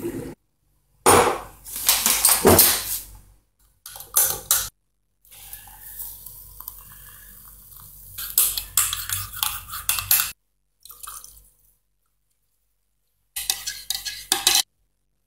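Mug-of-coffee making in short cut-together bits: china and cutlery clinking and clattering, water poured from a kettle into a ceramic mug in the middle, and a teaspoon stirring and clinking against the mug near the end.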